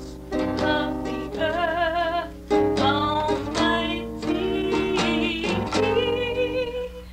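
Music played on plucked strings, with a melody of long notes that waver in pitch.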